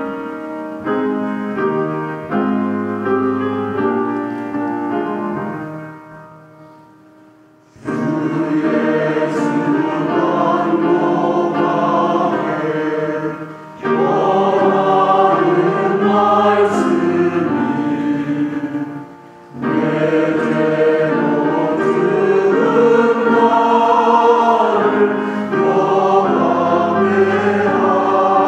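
A piano plays a closing phrase that fades away. About eight seconds in, a mixed choir of men's and women's voices comes in loudly, singing a Korean hymn in harmony, in long phrases with two brief breaths between them.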